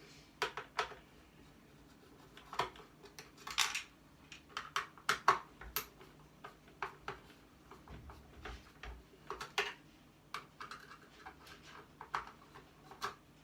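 Irregular clicks, clinks and clatters of metal parts and hand tools while an electrical appliance is being taken apart for scrap.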